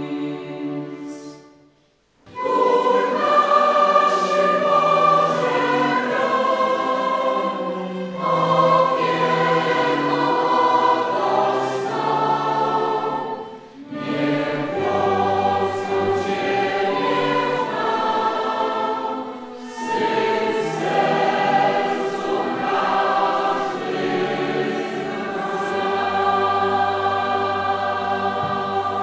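Large mixed choir singing a hymn with string accompaniment, in long sustained phrases. A held chord fades out near the start, and after a short break the choir comes back in about two seconds later.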